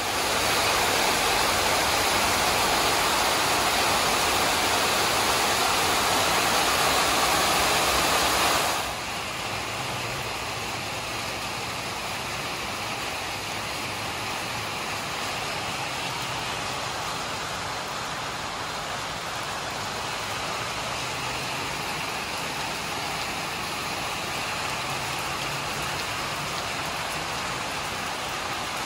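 Rain falling on a corrugated steel carport roof and the ground around it, an even hiss of many drops. It is heavy and loud for the first nine seconds or so, then drops suddenly to a lighter, steady rain.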